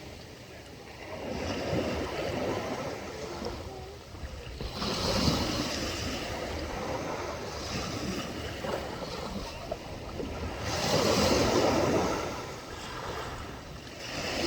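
Sea waves breaking and washing up the shore in a few slow swells, loudest about five seconds in and again around eleven seconds in.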